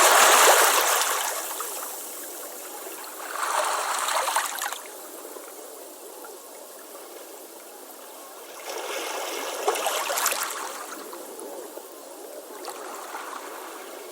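Ocean waves washing onto a beach, coming in four surges that swell and fade over a steady hiss; the first surge is the loudest.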